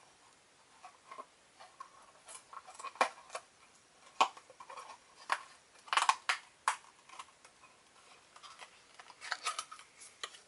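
A small cardboard box being carefully worked open by hand: irregular crackles, clicks and light rustles of folding and tearing card, with a cluster of sharper snaps about six seconds in.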